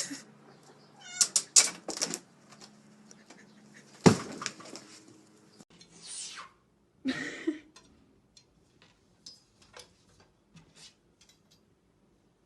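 Cat meowing a few times among scattered clicks, with a sharp thump about four seconds in.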